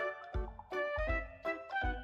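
Upbeat background music with a steady beat and short, bouncy melody notes.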